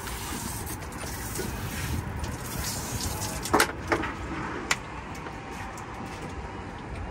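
Steady low rumble and hiss on a small fishing boat, with a few sharp knocks and clicks between about three and a half and five seconds in.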